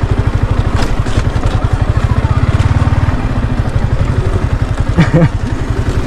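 Motorcycle engine running at low revs with a steady, fast, even pulsing, the bike riding slowly over a rough stone track.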